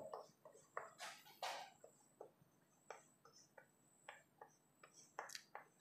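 Faint, irregular taps and short scratches of chalk writing on a blackboard.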